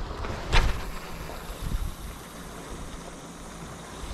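Wind and sea-surf noise on a body-worn camera's microphone, with one short, sharp knock about half a second in.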